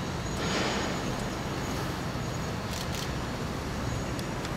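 Steady mechanical workshop background noise, with a short hiss about half a second in and a few light clicks near three seconds.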